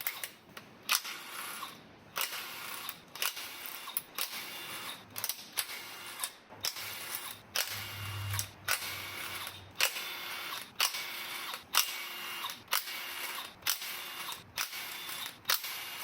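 Hand ratchet wrench clicking in regular strokes, about three every two seconds, as bolts on top of a GM 3.6 L V6 cylinder head are backed out to remove the camshafts.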